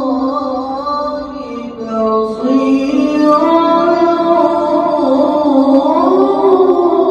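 A solo male qari's voice reciting melodically into a microphone, in long held notes that bend up and down with ornamented turns. There is a brief dip about two seconds in, then it comes back louder.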